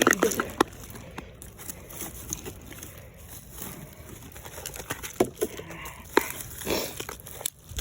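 Scattered scrapes, clicks and knocks of digging by hand through dump dirt and debris, with a few sharper clinks about five, six and seven seconds in.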